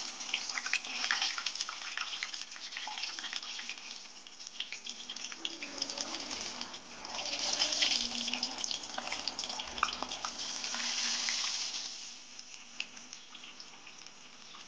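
Hot oil sizzling and crackling around potato pinwheel samosas deep-frying in a steel pan. It swells louder twice in the middle, then dies down near the end.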